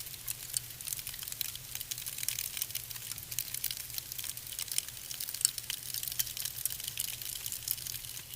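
Wood fire burning in a fireplace: dense, irregular crackling and popping over a soft hiss.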